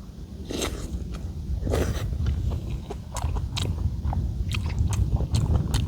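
Close-up eating sounds: a person biting and chewing food, with a string of short sharp clicks and crunches. Underneath runs a low rumble of wind buffeting the microphone.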